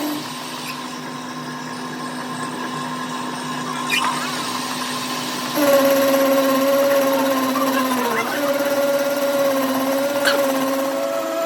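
A power tool's motor running steadily with a hum, getting louder about halfway through and dipping briefly in pitch as if loaded, with a couple of light clicks.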